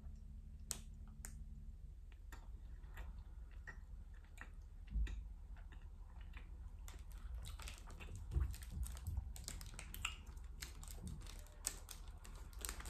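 Faint chewing and small mouth clicks as a soft chocolate-coated bar with banana cream filling is eaten, scattered irregular ticks over a low steady hum.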